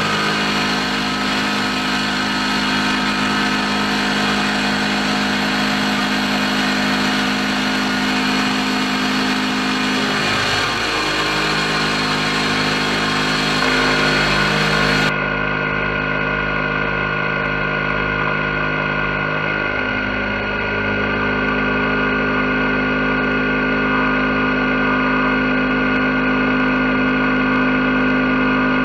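CNC mill's end mill cutting an aluminium block, the spindle and cut giving a steady whine over the hiss of mist coolant. The pitch dips and shifts briefly about a third of the way in and again about two-thirds of the way, and the sound turns duller halfway through.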